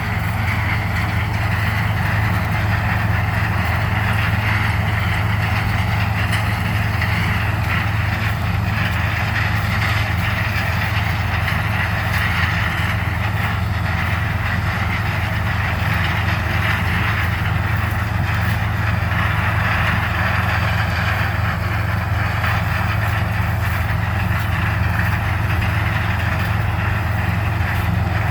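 Harvest machinery running steadily: the engines of a combine harvester and a tractor give an unbroken low drone throughout.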